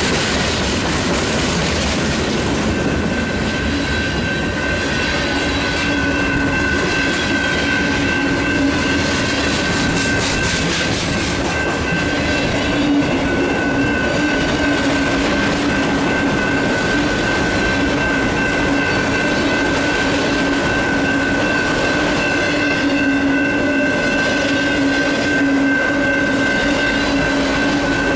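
Loaded freight cars of a mixed freight train rolling steadily through a grade crossing, wheels clattering over the rails, with the crossing's Graham White electronic bell sounding a steady tone over the top.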